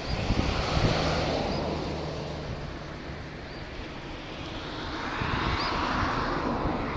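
Outdoor rushing noise, like wind on the microphone, that swells at the start and again near the end, with a steady low engine hum over the first few seconds and a few faint high chirps.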